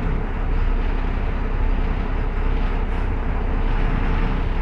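Steady engine and road rumble of a moving bus, heard from inside the cabin.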